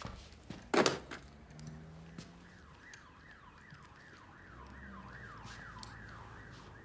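A loud sharp bang just under a second in, then an electronic alarm siren starts a few seconds in and wails in quick falling sweeps, about two or three a second.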